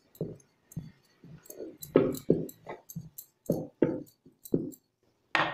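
Wooden rolling pin rolled back and forth over bhatura dough on a round board, about ten short strokes, with bangles clicking on the wrist.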